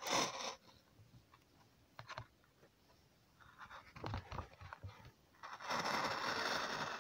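Rawhide being cut into a thin lace on an adjustable strip cutter (sacatientos) set to its finest width: a few small clicks and handling rustles, then about two seconds of steady noise near the end as the blade slices along the hide.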